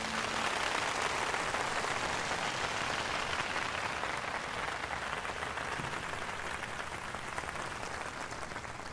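Audience applauding, many hands at once, slowly fading.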